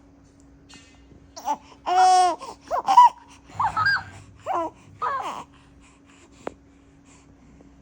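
A baby babbling and squealing in a run of short high-pitched vocal sounds, followed by a single click about six and a half seconds in.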